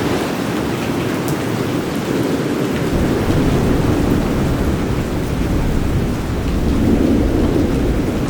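Steady rain with a low rumble of thunder that comes in about three seconds in and carries on.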